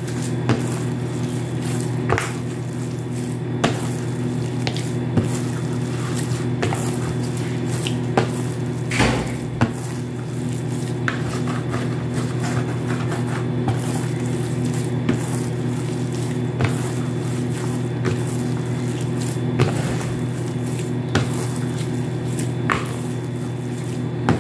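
Hands kneading soft siopao dough in a plastic basin: squishes and light slaps about every second or so, over a steady low hum.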